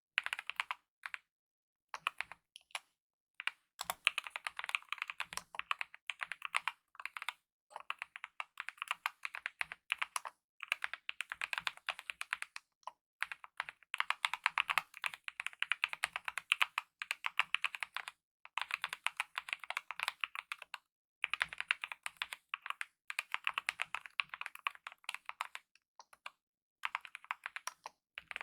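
Fast typing on a mechanical keyboard with lubed optical red linear switches and DSA-profile keycaps: quick runs of keystroke clicks in bursts of a few seconds, broken by short pauses.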